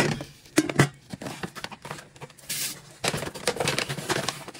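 Plastic rice bag rustling and crinkling as it is handled, with scattered clicks and a couple of louder knocks near the start. A short hiss comes about two and a half seconds in.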